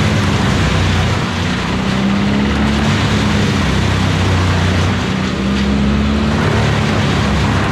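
Tow-behind wood chipper's engine running loud and steady at working speed, with the whir of its cutter drum. Its pitch and level sag briefly twice, about a second in and about five seconds in.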